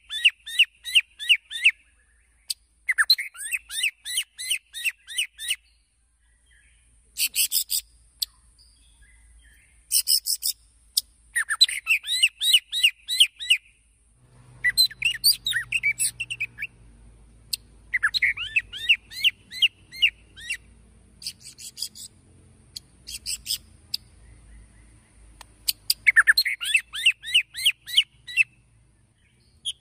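White-rumped shama (murai batu) singing: fast rattling phrases of quickly repeated notes, about five a second, each phrase up to a couple of seconds long, broken by short pauses.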